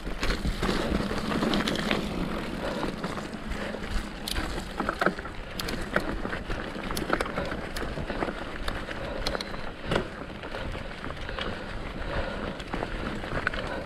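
Mountain bike moving over a muddy trail, heard from an on-bike or body camera: a steady rumble and rush with wind on the microphone, and irregular clicks and knocks from the bike's frame and parts throughout.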